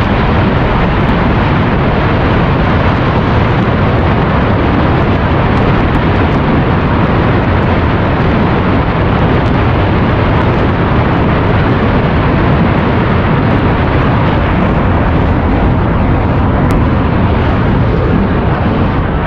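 Military jet aircraft flying low overhead: a loud, steady jet-engine roar with no break.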